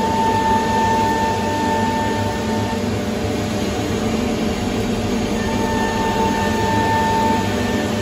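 Double-head wood CNC router running: a steady high whine from the spindle over a constant rushing machine hum. The whine stops for two or three seconds in the middle, then comes back.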